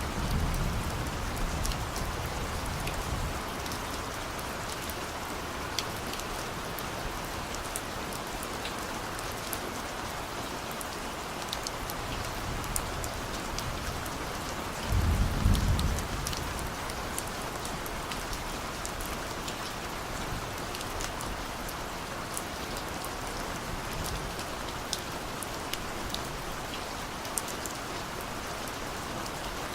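Steady rain with fine scattered drop ticks. A low rumble of distant thunder fades out over the first few seconds, and a second short low rumble comes about halfway through.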